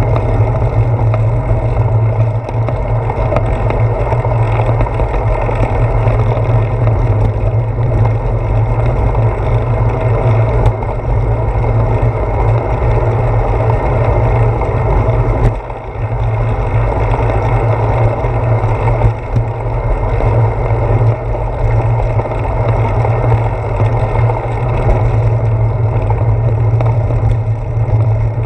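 Steady wind rush and road rumble on the microphone of a handlebar-mounted GoPro Hero 4 as the bicycle rolls along a paved path, with a brief dip about halfway through.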